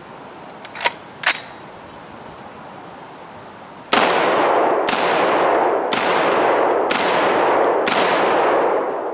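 Home-built 7.62x39 AR-15 rifle fired five times at a steady pace of about one shot a second, each shot trailing off in a long echo. About a second in come two sharp clicks.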